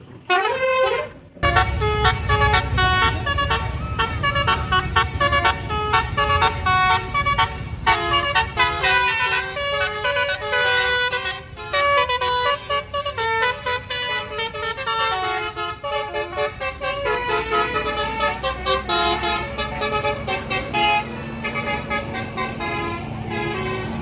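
A tour bus's musical 'basuri' (telolet) air horn playing a fast tune of short notes, over a low engine rumble that comes in about a second and a half in.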